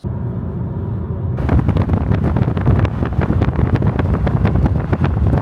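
Strong wind buffeting the microphone: a heavy low rumble that comes in suddenly, with rapid irregular crackling gusts from about a second and a half in.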